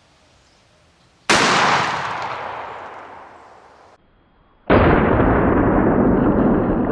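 12-gauge shotgun firing 2¾-inch 00 buckshot: a sudden blast about a second in that dies away over a couple of seconds, then a second blast near the middle that sounds duller and rings on longer.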